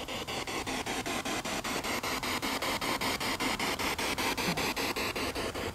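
Spirit box sweeping rapidly through radio stations: steady static chopped by quick clicks about ten times a second.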